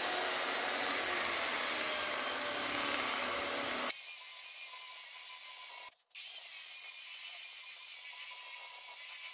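Electric belt sander running and sanding a raintree wood slab: a steady motor whine with the rasp of the abrasive belt on the wood. The sound changes abruptly about four seconds in and cuts out briefly near six seconds before carrying on.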